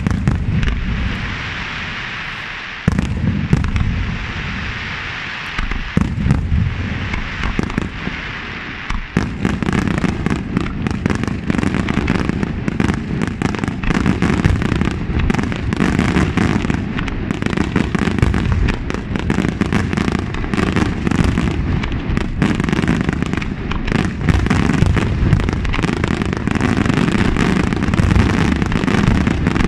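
Aerial fireworks shells bursting. A few separate booms, each followed by a rumbling decay, give way about nine seconds in to a dense, rapid barrage of overlapping bangs and cracks.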